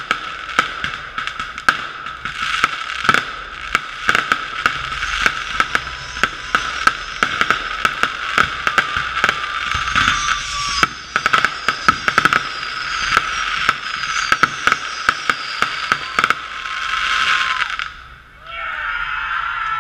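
Consumer fireworks firing in a rapid barrage of bangs and crackles, dull and muffled because the camera's waterproof housing blocks most of the sound. The barrage stops about eighteen seconds in, and people's voices follow near the end.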